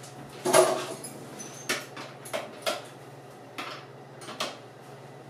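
Kitchen utensils and dishes being handled: a string of short knocks and clinks, the loudest about half a second in, over a steady low hum.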